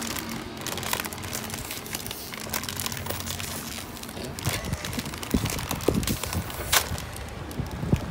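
Foil-lined Lay's potato chip bag crinkling and crackling as it is pulled open by hand at its sealed top. The sharpest crackles come in the second half.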